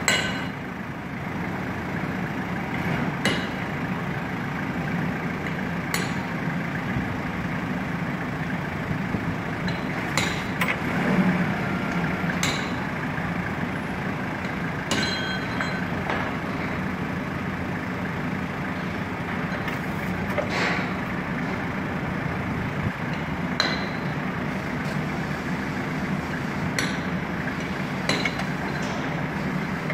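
Forklift engine running steadily, with sharp metallic clinks every few seconds.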